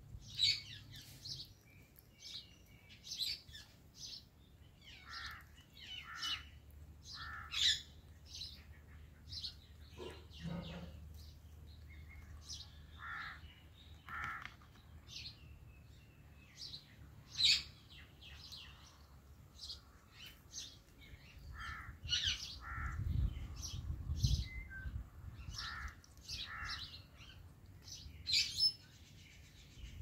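Indian ringneck and Alexandrine parakeets chirping and squeaking in short, scattered calls while beak-feeding. A brief low rumble comes about three-quarters of the way through.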